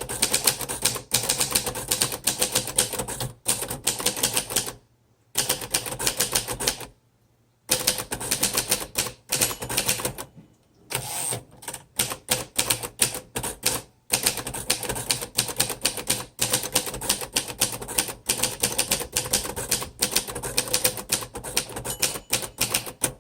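Steady, fast typing on a 1951 Royal Quiet De Luxe manual typewriter: type bars striking the platen as rapid clicks, several a second, with a few short pauses.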